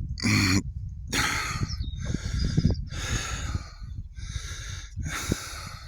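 Heavy breathing close to the microphone, a breath roughly every second, over a low rumble.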